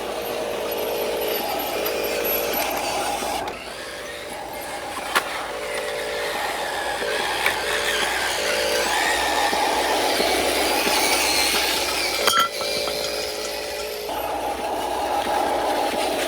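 Electric drive motor and gears of a toy RC truck whining in short on-off spurts as it drives, over a steady rough running noise, with a couple of sharp clicks.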